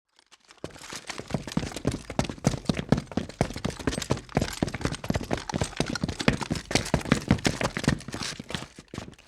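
A rapid, irregular run of sharp knocks and clicks, several a second, starting about half a second in and stopping just before the end.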